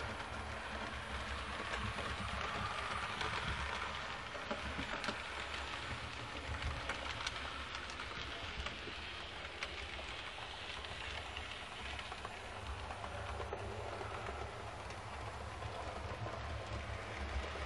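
HO-scale model train (Roco E626 electric locomotive with coaches) running on the track: a steady crackling rattle of wheels on rail with scattered small clicks over a low motor hum.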